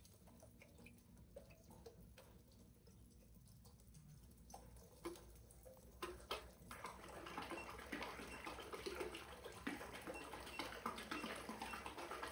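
Water churning and splashing in a small tank, stirred by a 3D-printed toroidal propeller spinning underwater, which runs noticeably quiet. Faint and sparse at first, with scattered drips and clicks, then denser and louder from about six seconds in as the motor current is raised.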